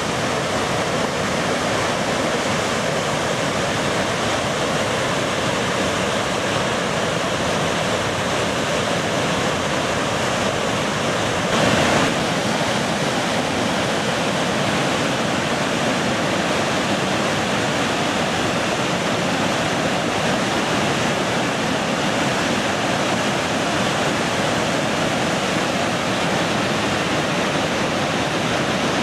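Gullfoss, a large two-tier waterfall, pouring into its gorge: a steady, unbroken rush of falling water, briefly louder about twelve seconds in.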